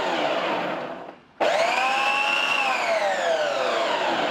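Preethi Zodiac mixer-grinder's motor spinning the food-processor jar's chopping blade through onions in short pulse-mode bursts. A loud whine falls in pitch and stops just after a second in, then starts again sharply, rising and then falling in pitch.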